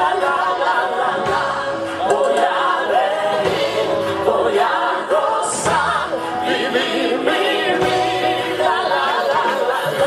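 Music with voices singing and held notes over a bass line.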